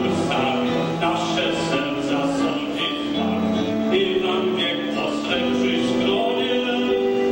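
A man singing a song solo into a handheld microphone, with piano and band accompaniment.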